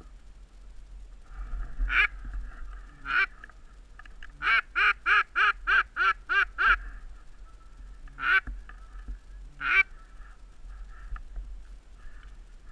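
Duck quacking: two single quacks, then a quick run of about nine quacks at roughly four a second, then two more single quacks.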